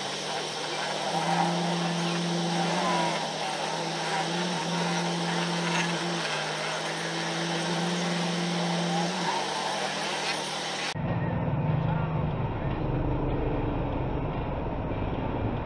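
Dash cam audio of slow stop-and-go traffic: idling engines and road noise with indistinct voices, and a steady low hum that comes and goes every second or two. About eleven seconds in the sound changes abruptly, turning duller and deeper as the recording cuts.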